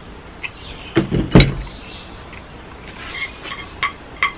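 Two dull knocks on the table about a second in, a plastic sauce bottle being set down, then a few light clicks of cutlery on plates.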